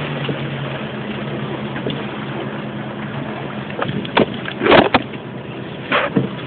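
Vehicle engine idling with a steady low hum under a constant hiss, broken by a few short, loud bursts of noise about four to six seconds in.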